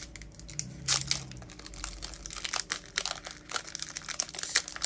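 Plastic-foil Pokémon card booster pack wrapper crinkling as it is torn open by hand, irregular crackles, loudest about a second in and near the end.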